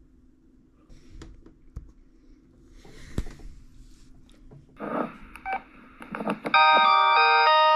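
Old 2000s-style polyphonic cell phone ringtone starting about six and a half seconds in, a loud electronic melody of short, steady notes from a phone's speaker. Before it, a few faint taps and short beeps.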